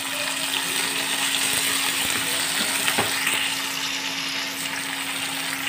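Chopped tomatoes sizzling in hot oil with browned onions in a steel kadai as they are stirred with a steel spoon, which clicks against the pan about three seconds in. A steady low hum runs underneath.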